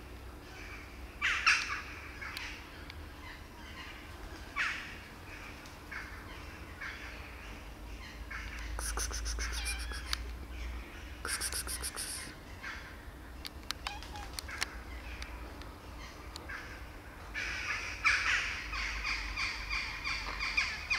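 Birds calling: short harsh calls repeated at irregular intervals, the loudest about a second and a half in. Two brief runs of rapid high clicking come in the middle.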